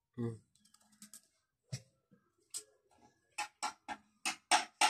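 Knife strokes peeling nduma (arrowroot) tubers: short scraping clicks, sparse at first, then coming about three a second in a steady run through the second half. A brief low sound comes right at the start.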